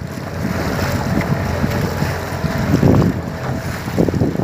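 Wind buffeting the microphone over choppy river water slapping against a small boat's hull, with heavier slaps about three seconds in and again near the end.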